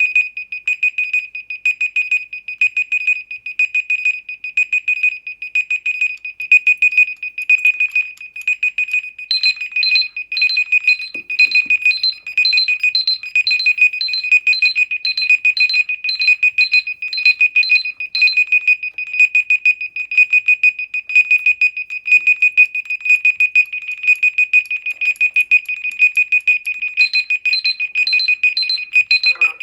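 Smartphone alarm ringing: a rapid electronic beeping at one high pitch that repeats without pause, with a second, higher beep joining in for a stretch in the middle and again near the end.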